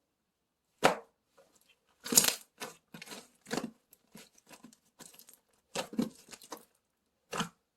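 A string of short, irregular crackles and taps: single ones and quick clusters with silent gaps between, the loudest about two seconds in.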